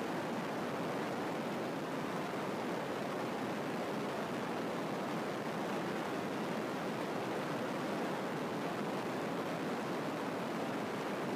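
A steady, even rushing hiss that does not change in level.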